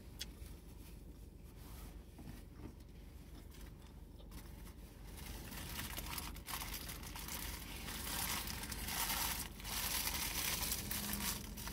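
Paper food packaging crinkling and rustling as it is handled, growing louder and busier over the second half.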